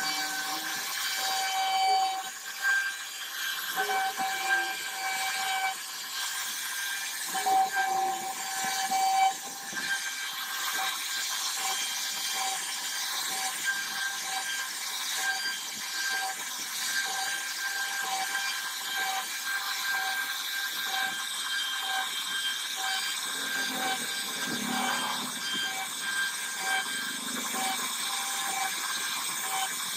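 CNC router spindle running with a steady high whine as its bit carves relief patterns into a wooden door panel, the tone breaking up into short pulses through much of the cut.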